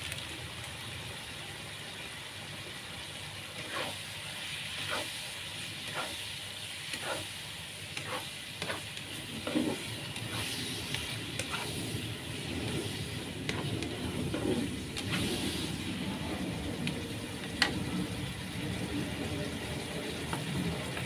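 Cauliflower and mushroom stir-fry with a little liquid sizzling in a pan, stirred with a spatula that clicks and scrapes against the pan a number of times.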